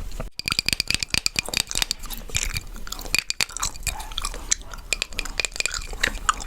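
Chewing gum close to the microphone: fast, wet mouth clicks and smacks.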